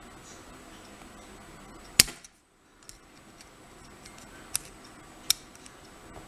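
Sharp metal clicks as a tool works at the retaining clip on an Assa lock cylinder: one loud click about two seconds in, then two lighter ones near the end.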